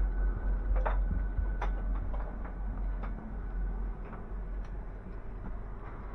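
Steady low hum inside a standing night-train sleeping car, with scattered light clicks and knocks; the hum drops a little about four seconds in.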